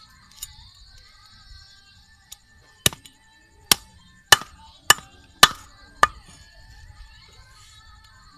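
Cleaver chopping through fish on a wooden board. A couple of light taps come first, then a run of six sharp chops about half a second apart in the middle.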